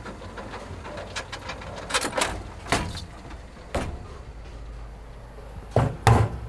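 A series of sharp knocks and clatters over a steady low hum, with a cluster about two seconds in and the loudest two knocks near the end.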